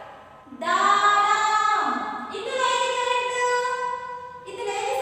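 A woman's voice reading Telugu words aloud in a drawn-out, sing-song chant. There is a lower phrase about half a second in, then a higher note held for about two seconds.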